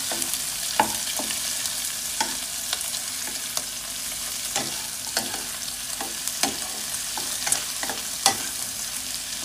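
Whole shell-on shrimp sizzling in hot oil in a wok as they fry golden on both sides, with a steady hiss and the spatula scraping and knocking against the pan at irregular moments as they are turned.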